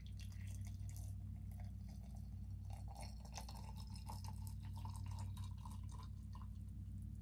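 Hot water poured in a thin stream from a gooseneck kettle into a glass tea mug, a steady trickling splash whose pitch rises slightly as the pour goes on.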